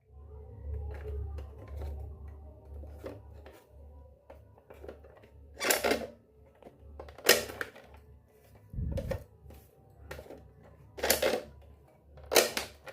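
Miniature steel toy kitchenware being handled and set down: light clicks and clacks throughout, four sharp metallic clinks standing out, and a dull thump near the middle.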